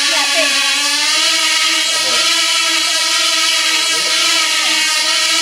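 Tiny Cox Tee Dee .020 two-stroke glow engines running flat out on racing model planes: one high, steady whine that wavers slightly in pitch, with other engines' tones sliding up and down as they pass.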